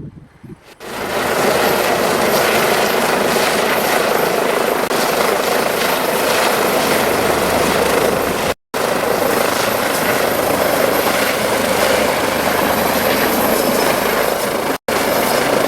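Medical helicopter approaching to land, its rotor and engine noise loud and steady, starting about a second in. The sound drops out abruptly to silence twice, briefly.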